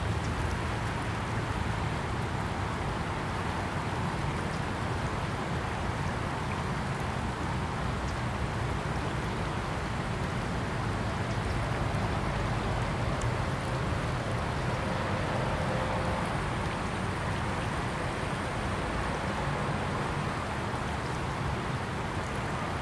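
Small river flowing, a steady rush of turbulent water over its bed.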